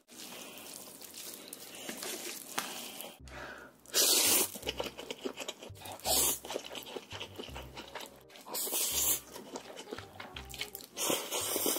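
Close-miked slurping of saucy spicy instant noodles, with wet chewing and smacking between four loud slurps about 4, 6, 9 and 11 seconds in. In the first few seconds, chopsticks stir the sauce through the noodles.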